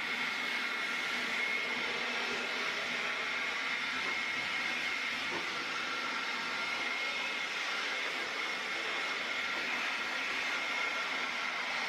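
A small electric motor running steadily under a rushing hiss, with a constant high whine.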